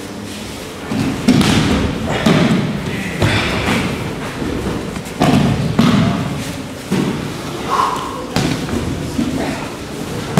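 Aikido practitioners' bodies and bare feet landing on tatami mats during throws and breakfalls: a string of irregular thuds, roughly one a second.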